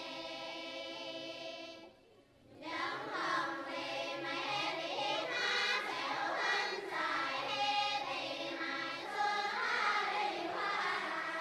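A group of voices singing together: a held chord for about two seconds, a brief break, then the singing resumes with moving lines.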